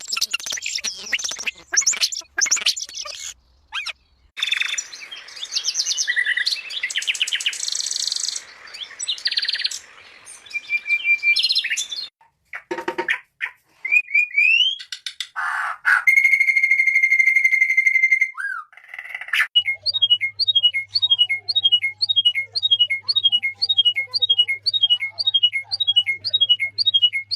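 Songs and calls of several different birds, in short clips cut one after another: varied chirps and trills, then a steady whistled note. For the last eight seconds there is a quick run of repeated down-slurred chirps, about two or three a second, over a faint low hum.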